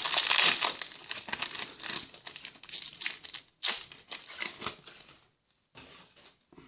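Foil booster-pack wrapper crinkling as it is handled. The crinkling is loudest in the first few seconds, with one sharp rustle near the middle, and then turns quieter and patchier.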